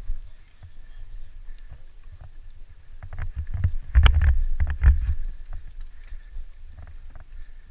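Dirt bike riding a rough forest trail, heard from the rider's camera: a steady low rumble of engine and wind, with a burst of knocks and clatter about four to five seconds in as the bike jolts over bumps.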